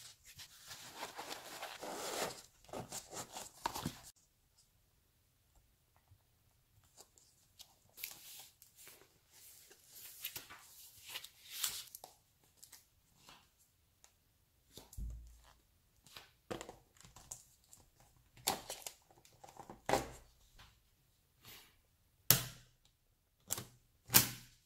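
Neodymium magnet balls being handled: a few seconds of dense scraping and rustling at the start, a second noisy stretch near the middle, then scattered clicks, with two sharp, loud clicks near the end as balls snap together.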